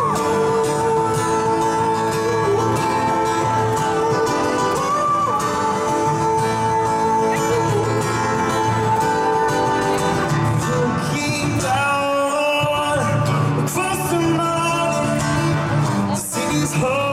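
Live performance of a pop song: a male singer's voice over guitar accompaniment, playing continuously.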